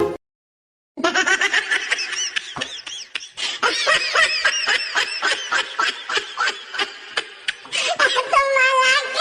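Rapid high-pitched giggling laughter, a fast string of short bursts, rising near the end into a held squeal.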